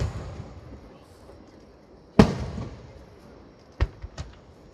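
Aerial firework shells bursting. The echoing rumble of one burst fades away at the start, a loud boom comes about two seconds in with a long echoing tail, and two sharper, quicker cracks follow near the end.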